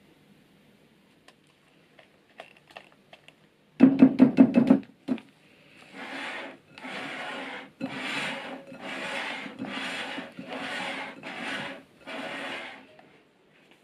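A spatula scraping around a glass mixing bowl, folding chocolate batter into whipped egg whites in regular strokes about one a second, gently so as not to break the meringue's bubbles. A quick run of knocks and scrapes comes just before the folding starts.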